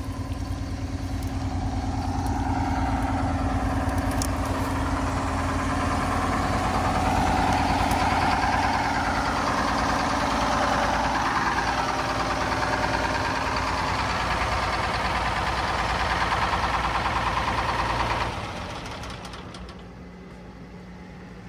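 Detroit Diesel engine of an old Mudcat dredge running hard and steady. About eighteen seconds in it drops abruptly to a much quieter steady run.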